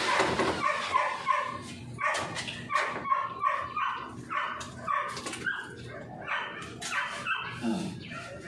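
A dog barking over and over, short pitched barks in quick, uneven succession.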